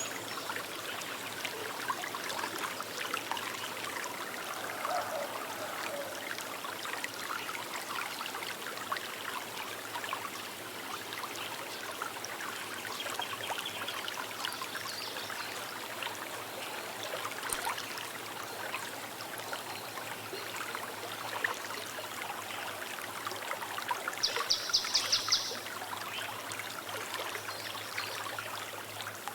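Small river running steadily over stones, a continuous babbling and trickling. Near the end a bird gives a brief, rapid high-pitched trill above the water.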